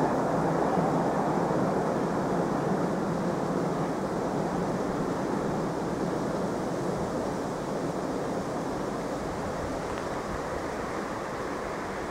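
Distant vehicle rumble, a steady noisy hum that slowly fades away.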